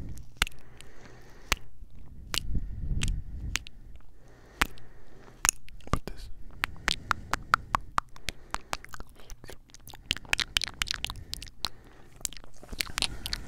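Close-up ASMR kissing and lip-smacking pressed right against a Tascam recorder's microphones: a quick, irregular run of wet clicks and smacks that grows denser near the end. There is a low rumble about three seconds in.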